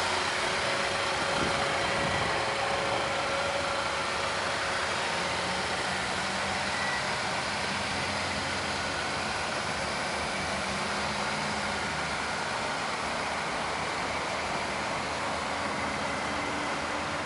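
A 2007 Honda Accord's 2.4-litre i-VTEC four-cylinder idling steadily, under an even hiss of outdoor background noise.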